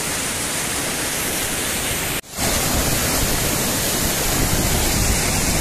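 Steady loud rush of flowing river water. It cuts out abruptly for a moment about two seconds in, then resumes.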